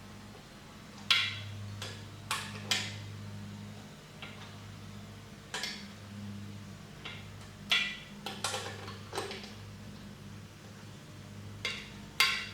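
Irregular metallic clicks and clinks of small bolts and hardware being handled and fitted while a forge burner is bolted on, with a low hum underneath.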